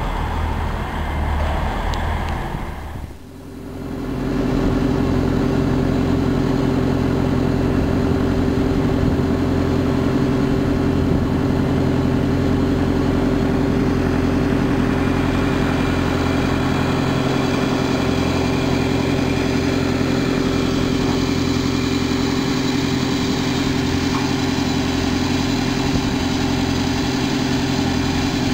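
Cutter suction dredger's engine running steadily at an even pitch, heard on board. For about the first three seconds a noisier mechanical sound is heard instead, and it cuts off abruptly.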